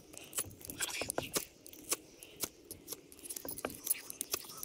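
Ferro rod scraped hard with a metal striker, a quick run of short, sharp rasping strikes at irregular spacing, a few a second, throwing sparks at cotton tinder to start a campfire.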